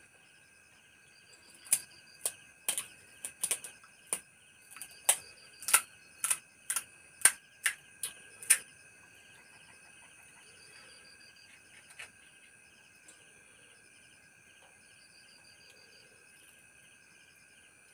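About fifteen sharp, crisp cracks over the first nine seconds as crunchy pani puri shells break, then they stop. Behind them, a steady chorus of night insects with a pulsing trill.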